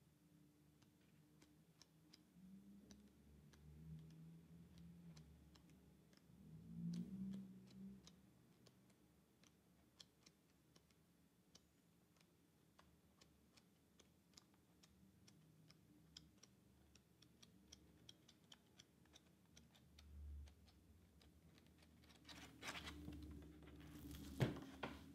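Paper pages of a large hardcover book turned near the end: a dry rustle that ends in a sharp flick of a page. Under it, a faint, even ticking.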